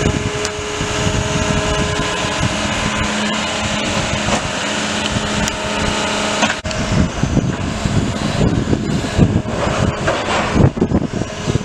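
Diesel engine of a John Deere excavator running with a steady hum; about six and a half seconds in, the sound turns rough and uneven, with scattered knocks.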